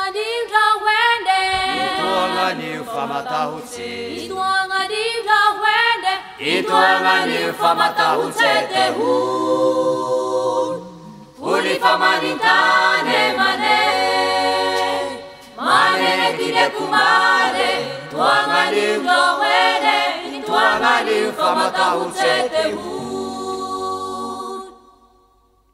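Several voices singing together in harmony, unaccompanied, in long phrases with two brief pauses; the singing fades out near the end.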